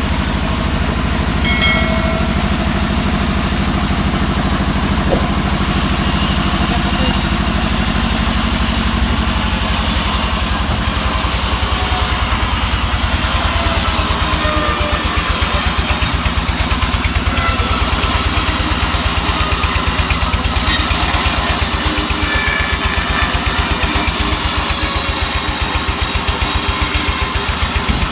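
Sawmill machinery running: an engine with a rapid, even firing beat under a steady hiss, growing a little louder about twelve seconds in.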